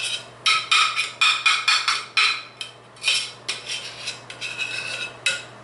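Metal cake knife knocking and scraping against the crockpot insert as thick hot-process soap is worked out of the pot: a quick run of sharp ringing knocks in two bursts with a short pause between.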